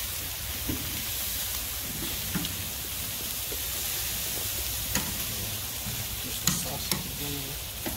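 Meat sizzling on a charcoal grill, a steady hiss, with a few sharp clicks of metal tongs on the grate, the clearest about five seconds in and twice more a little later.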